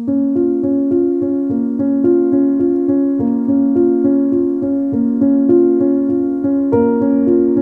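Background music: a piano-like electric keyboard plays steady repeated notes and chords over a soft, even low pulse.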